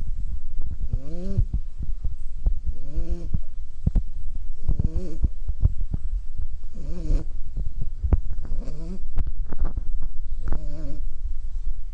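A sleeping puppy snoring. A short, pitched, slightly wavering snore comes on each breath about every two seconds, six in all, over a steady low rumble and scattered clicks.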